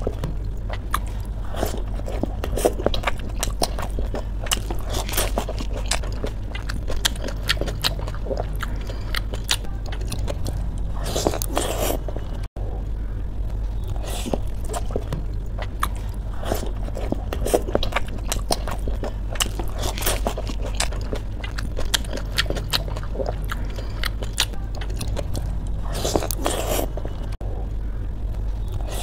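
Crisp pani puri shells being cracked open with the fingers and crunched while eating: a run of many small crisp cracks and crunches, over a steady low hum.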